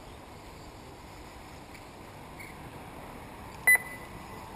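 A short, loud electronic beep, two quick pips at one high pitch, about three and a half seconds in, over a steady background hiss.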